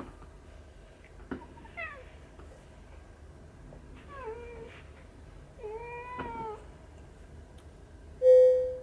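Domestic cat meowing: a short falling meow about two seconds in, then two longer meows around four and six seconds in. Near the end comes the loudest sound, a short tone held at one steady pitch.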